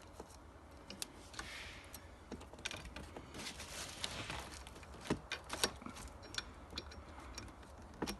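Bicycle brake cable and small metal brake parts being handled as the cable is threaded back through: scattered light metallic clicks and ticks, with rustling about a second and a half in and again around four seconds in, and a few sharper clicks in the second half.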